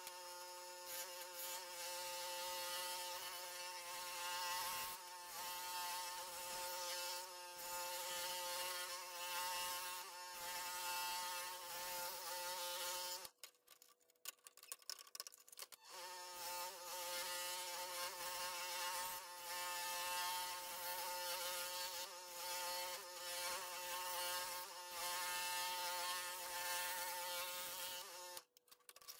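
Scroll saw fitted with a #5 Flying Dutchman Ultra Reverse blade running steadily while cutting 1/2-inch MDF. The saw stops for about two and a half seconds a little under halfway through, starts again, and stops just before the end.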